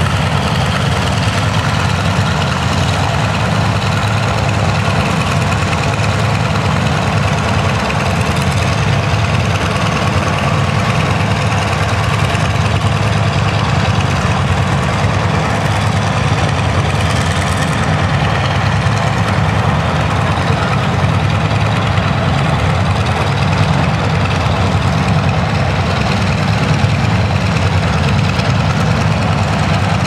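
Many Antonov An-2 biplanes running their nine-cylinder radial engines together: a loud, steady, low drone that does not let up.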